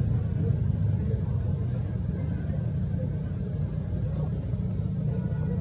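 A steady low rumble of outdoor background noise, with no clear sound event standing out.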